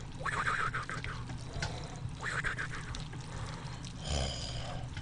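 A person slurping jjajangmyeon noodles, two long slurps about two seconds apart.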